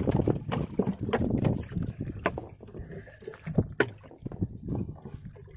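Choppy waves lapping and slapping against something close by, with scattered sharp knocks and clicks from fishing gear being handled.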